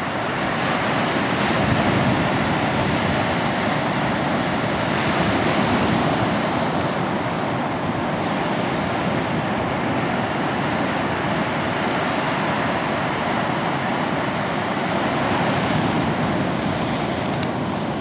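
Ocean surf breaking: a steady rushing wash of waves that swells louder now and then.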